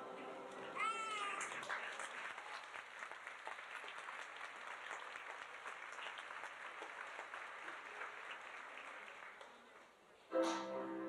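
Audience applauding, with a short high whoop about a second in. The clapping fades out, and music starts just before the end.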